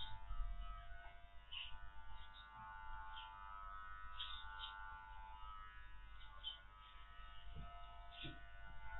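Electric dog grooming clippers running with a steady buzz as they trim a Spanish water dog's curly coat.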